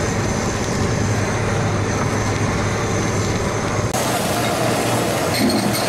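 Handheld butane blowtorch running with a steady hiss as it flame-sears slices of raw tuna, over a low hum. The hiss turns brighter about four seconds in.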